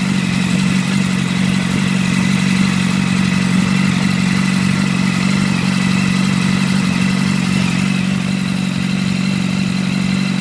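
2006 Yamaha R1's inline-four engine idling steadily through a full titanium Arata exhaust, warming up to temperature after an oil change.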